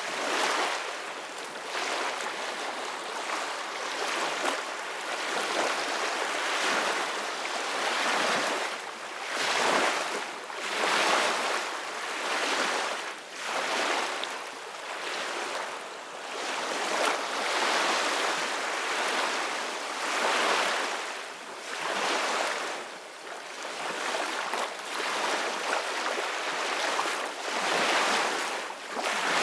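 Ocean surf washing in: a steady hiss of waves that swells and eases every two seconds or so.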